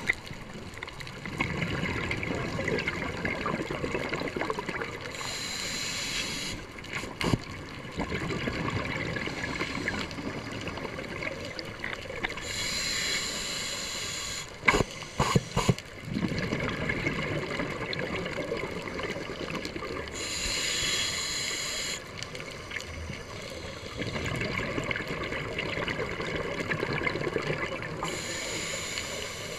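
Scuba diver breathing through a regulator, heard underwater: each exhalation a long low bubbling rush, each inhalation a shorter hiss, in a cycle of about seven to eight seconds. A few sharp clicks about halfway through.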